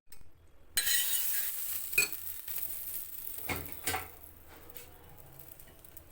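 Batter-coated bread sizzling as it hits a hot oiled pan, starting suddenly about a second in and fading over a few seconds, with a few clinks of a utensil against the pan.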